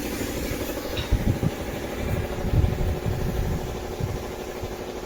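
An engine idling steadily, with irregular low knocks and bumps over it.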